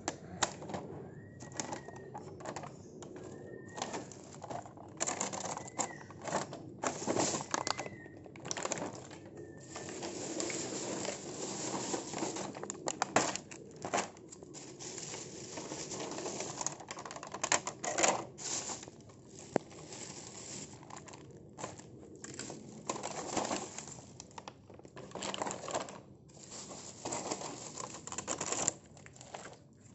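Plastic toy packaging and a plastic bag crinkling and rustling in short bursts as packaged toys are picked up and set down. In the first ten seconds a bird calls five times, a short whistle about every two seconds.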